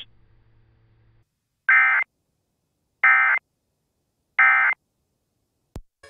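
Emergency Alert System end-of-message signal: three short bursts of digital SAME data tone, each about a third of a second, spaced about a second and a half apart, marking the end of the alert. A brief click comes just before the end.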